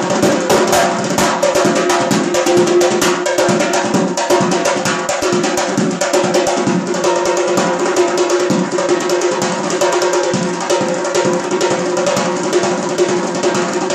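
Frame drum played with the fingers in a fast, continuous rhythm of many strokes a second, sharp taps over the ringing of the drumhead.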